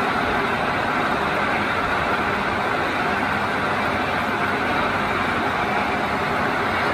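Conventional engine lathe running with a steady, even mechanical noise.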